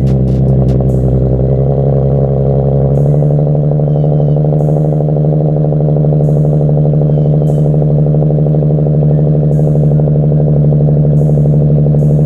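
2015 Infiniti Q50's 3.7-litre V6 idling loud and steady through a Motordyne cat-back exhaust in the first seconds after a cold start. The deep rumble eases a little about three seconds in.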